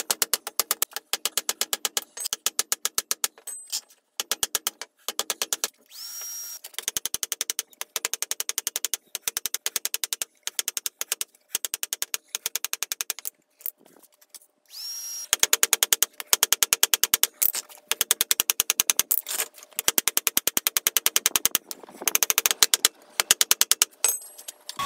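Hand hammer striking red-hot steel on a small anvil, drawing the hatchet's handle out into a long, narrow taper. Quick, even blows come several a second, each with a short metallic ring, in runs broken by brief pauses.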